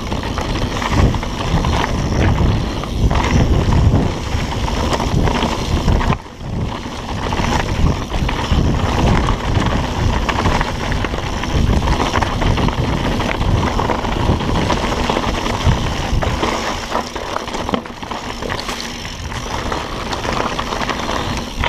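Mountain bike descending a dirt trail at speed: wind buffeting the microphone over the rumble of the tyres on dirt and rock, with frequent rattles and knocks from the bike.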